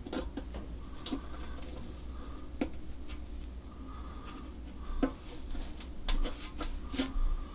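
Razor blade picking and scraping at the small position dots in a guitar fingerboard: irregular sharp clicks and scratches about once a second, with faint squeaky tones from the blade in between.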